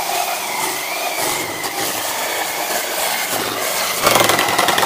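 Reciprocating saw (Sawzall) cutting through a block of oak, a rasping saw noise over a wavering motor whine, on a blade dull enough that it ought to be changed. It gets louder for about the last second of the cut.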